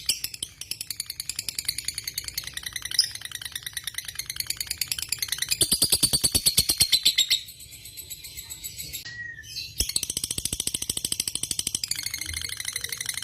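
Lovebird singing a long, rapid chattering trill of evenly repeated high chirps. The trill drops away for about two seconds past the middle, then picks up again.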